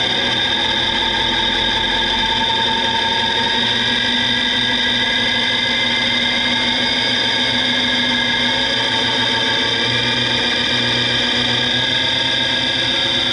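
3D-printed PLA helical gear train, driven by an electric motor, whining loudly as it spins up toward several thousand rpm. It is a steady whine made of many tones at once.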